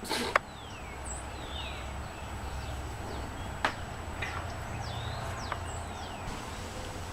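Birds chirping outdoors: short whistled notes, several sliding down and some sliding up, over a low steady rumble. A sharp click right at the start is the loudest sound, and another comes a few seconds later.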